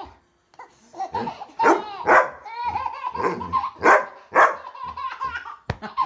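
Large black dog barking repeatedly at a baby, who laughs and squeals in between the barks.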